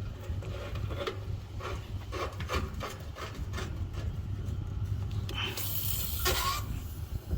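Scraping and clicking of tools and fittings being handled while a nitrogen purge is set up on an AC line set. A brief hiss of gas comes about five and a half seconds in and lasts about a second.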